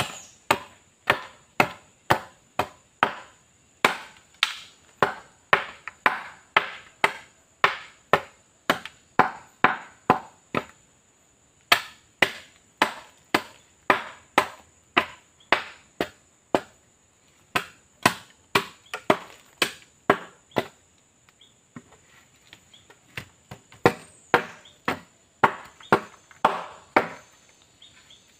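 Short bolo blade chopping the nodes off a bamboo pole, preparing it for roofing: sharp strikes on hard, hollow bamboo at about two a second, with a brief pause about eleven seconds in and sparser strikes a little past twenty seconds.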